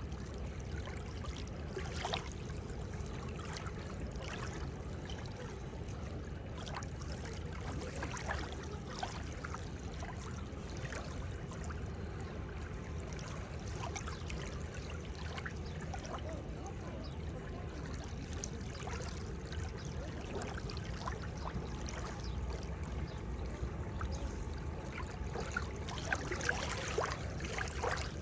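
Seawater lapping and trickling at the shoreline: a steady wash with many small splashes and gurgles, a little louder near the end.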